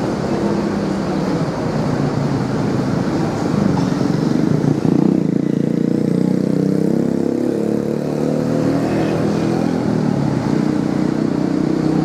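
Tour bus engine running as a bus drives slowly past, a steady low engine hum that grows louder about four to five seconds in.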